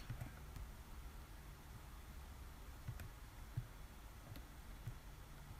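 Quiet room tone with a low hum, broken by a few faint, sharp clicks of a computer mouse and some soft low thumps.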